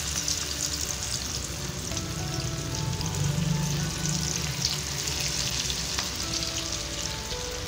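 Pakora batter (gram flour with grated potato, onion and spinach) frying in hot oil, a steady crackling sizzle as more batter is dropped in by hand.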